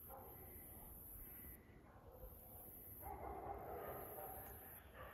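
Faint sounds of dogs on the hunt, louder from about three seconds in. Over them runs a high hiss that pulses on and off every second or two.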